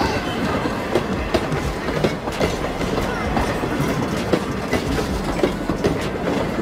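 Train of open-air passenger cars and a caboose rolling past: steady rumble of the wheels on the track with many sharp, irregular clicks and knocks as the wheels cross rail joints.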